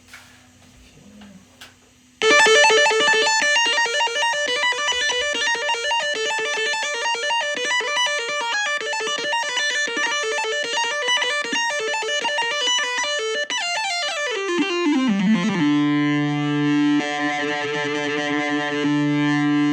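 Korg RK-100S 2 keytar playing its preset 26 'RK100 Lead', a guitar-like synth lead, in a fast shredding run of notes starting about two seconds in. Near the end the pitch slides steadily down into a held low note.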